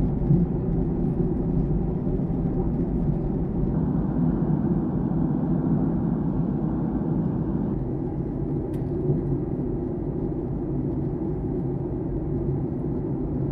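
Steady cabin rumble of a Boeing 737-800 in descent, from its engines and the airflow past the fuselage, heard at a window seat. A single faint click comes about nine seconds in.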